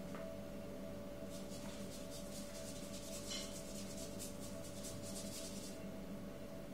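A paintbrush stroking back and forth across paper, a quick run of short scratchy strokes that starts about a second in and stops near the end.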